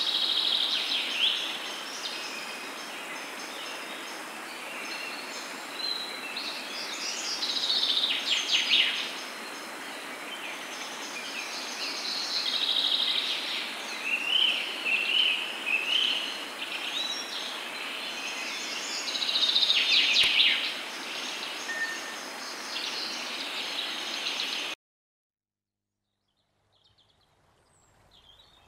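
Several birds singing and chirping over a steady rushing background noise. Everything cuts off abruptly about 25 seconds in, and faint birdsong comes back near the end.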